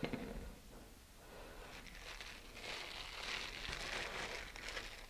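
Faint rustling and crinkling of a model rocket parachute being handled as its shroud lines are gathered and pulled out straight, a little louder from about two seconds in.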